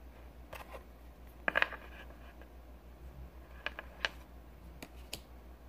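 Trading cards being handled and turned over on a table: scattered light clicks and taps of card stock, the loudest cluster about a second and a half in, over a faint low hum.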